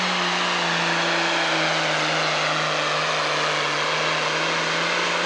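Pro Stock pulling tractor's diesel engine running wide open under load while dragging a weight-transfer sled, a loud steady drone whose pitch sinks slowly as the sled's growing load pulls the engine down.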